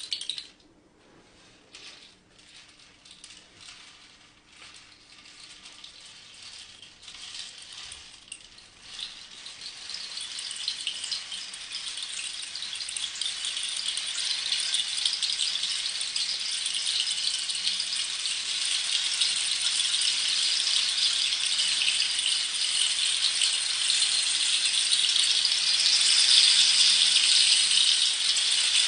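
Rain stick: small pebbles or seeds trickling down through the tube. It begins with scattered separate patters, then from about nine seconds in swells into a dense, steady shower of rattling that grows louder toward the end.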